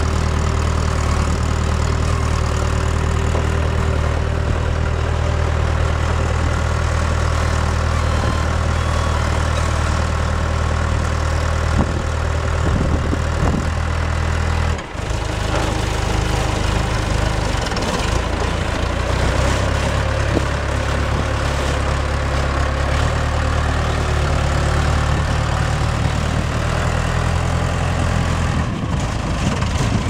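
The four-cylinder John Deere diesel engine of an Arrow HJ1250R concrete breaker running steadily as the machine is driven. There is a short break about halfway through, after which the engine note runs on a little changed.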